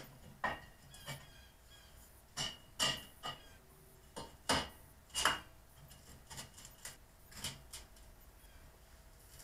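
Scattered light metallic knocks and clicks of a steel tubing beam being set into a steel frame and clamped, about eight in all, some with a short high ring, the loudest a few seconds in.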